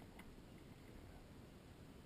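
Near silence: faint low background noise with one faint tick shortly after the start.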